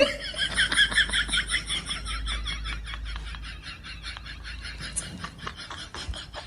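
A rapid, even run of short animal calls, about eight to ten a second, loudest at first and fading gradually.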